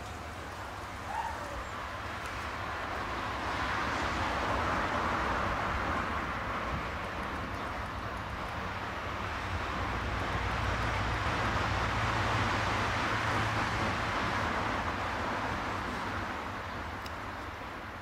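Outdoor background rush, a steady hiss that swells and fades twice, with a low hum underneath.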